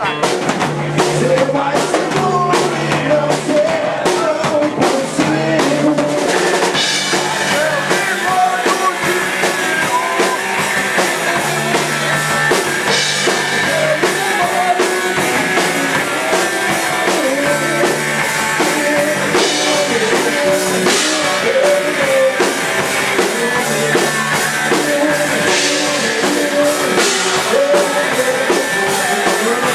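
Rock band playing, with the drum kit prominent. The sound gets brighter and fuller, with more cymbal, from about seven seconds in.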